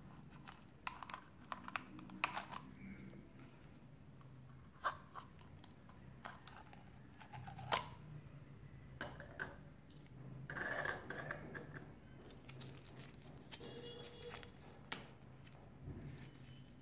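Quiet handling of a small clear plastic toy jar and its screw lid: scattered sharp plastic clicks and taps. About ten seconds in comes a longer crinkling rustle as a foil wrapper and paper insert are unwrapped.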